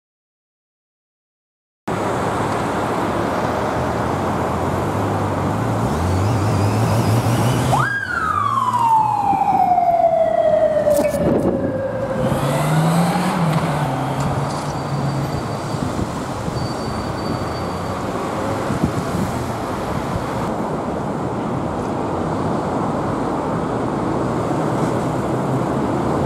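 Police siren giving a single wail about eight seconds in: it jumps up sharply, then winds down over about four seconds. Under it are steady road traffic and an engine accelerating in steps. The first two seconds are near silent.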